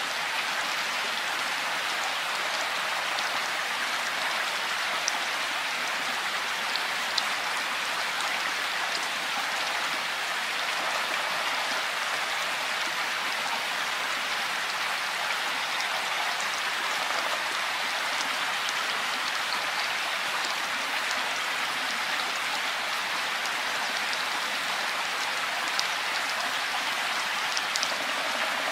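Steady rain falling in woodland, an even hiss with a few louder drops tapping now and then.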